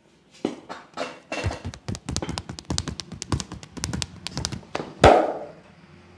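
Quick hand taps and slaps of a percussive head-and-body massage, several strokes a second, ending with one loud smack about five seconds in.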